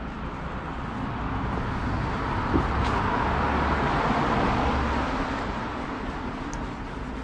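A car passing by on the street, its tyre and engine noise swelling to a peak mid-way and fading away over a few seconds. A single sharp knock sounds about two and a half seconds in.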